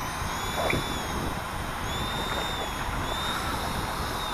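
Strong, gusty wind buffeting the microphone in a steady low rumble, with a faint high thin whine wavering slightly in pitch above it.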